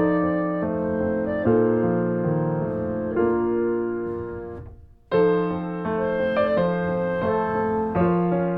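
Background piano music: slow, sustained chords changing about once a second. It fades almost to silence a little before five seconds in, then starts again.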